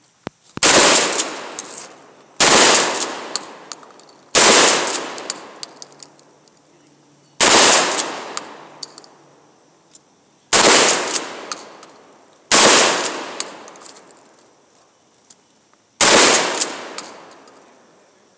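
A 12-gauge shotgun fired seven times, one shot every two to three seconds, each blast trailing off over a second or so, with faint clicks between the shots.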